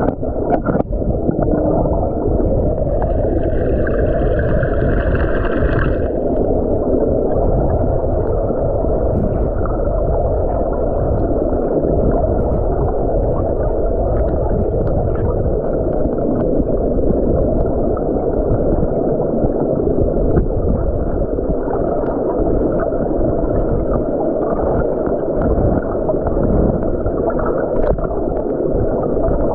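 Heavy, muffled rush of river current heard underwater through the camera housing, with scattered faint ticks of gravel and rock. About three seconds in, a higher scraping sound with a thin whine lasts about three seconds, then stops.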